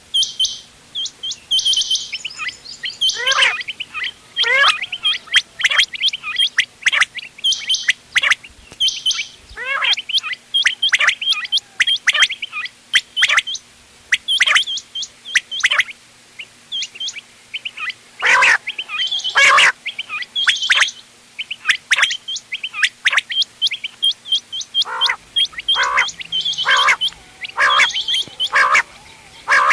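Quail calls, a mix of several birds' short, sharp notes repeated in quick succession and overlapping, of the kind played as a lure for quail hunting.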